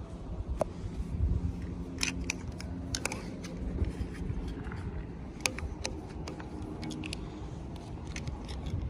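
Irregular small clicks and crackles of toy packaging being handled and opened, over a low rumble.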